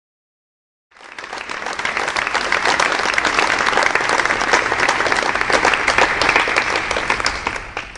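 Audience applauding: dense clapping of many hands that starts abruptly about a second in after dead silence, swells quickly and holds steady, beginning to fade at the very end.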